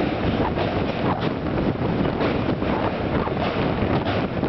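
Express passenger train running across a steel truss bridge: a steady loud rumble with irregular clatter of wheels on the rails, heard at an open window with wind buffeting the microphone.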